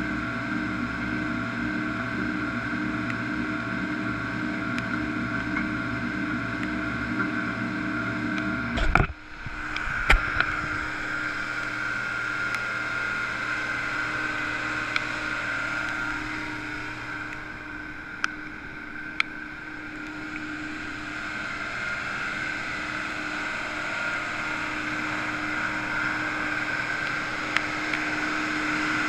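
Ingersoll Rand SD-116DX roller's engine running. A deep pulsing rumble cuts off with a thump about nine seconds in, followed by a couple of sharp clicks. The engine then runs on more lightly, with a steady high whine.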